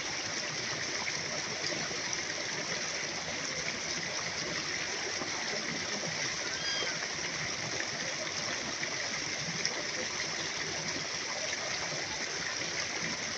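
A steady, even rushing noise, like running water, with a few faint short high chirps over it.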